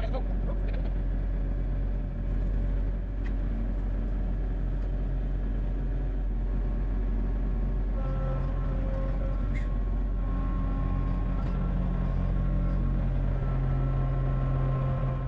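A motor vehicle's engine running steadily with a low hum, growing a little stronger about halfway through, with a few light clicks.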